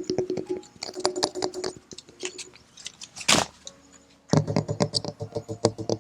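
Hands tapping on an excavator's metal body, quick taps that each ring briefly, with a single brushing swish about three seconds in. From about four seconds the tapping becomes faster and denser, with a deeper ring.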